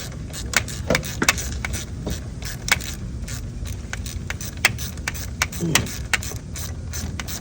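Irregular sharp metallic clicks and clinks of a hand tool working on a mower's negative battery cable terminal to disconnect it, over a steady low hum.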